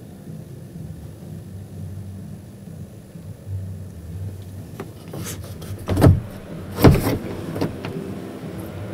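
Steady low hum of a busy exhibition hall heard inside a parked truck cab, broken near the middle by a string of knocks and two loud thumps about a second apart.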